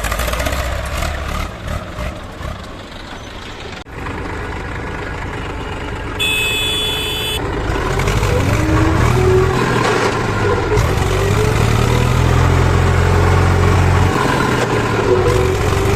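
Heavy diesel engines of a backhoe loader and tractors running. A brief high horn-like tone sounds for about a second, about six seconds in. From about eight seconds the engine grows louder and deeper, its pitch wavering as it works under load.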